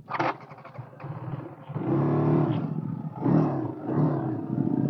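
Motorcycle engine revving on a rough dirt trail, its pitch rising and falling several times. There is a short rushing burst just after the start.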